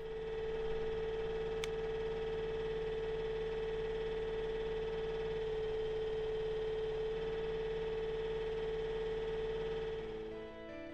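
Kubota U27 mini excavator running steadily, with a constant high whine over a low rumble. Music comes in near the end.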